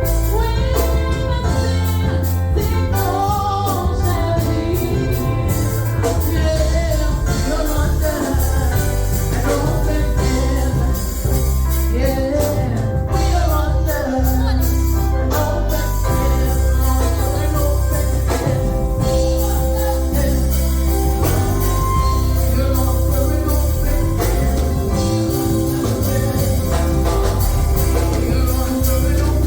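Gospel music: sung melody over a steady deep bass, with tambourine-like percussion hits throughout.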